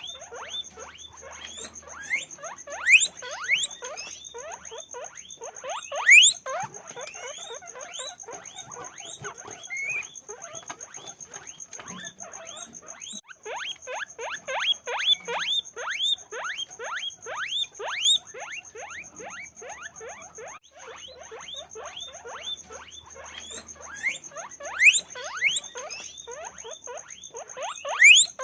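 Guinea pigs squeaking: a dense run of short rising squeaks, several a second and overlapping, with a few louder upward-sweeping squeals. A faint steady high-pitched tone runs beneath them.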